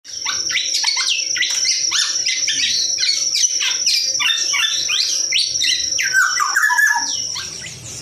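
A caged songbird singing a fast, continuous, varied song of rapid chirps and falling whistled notes, with a steady high-pitched tone running behind it. The song stops about seven seconds in.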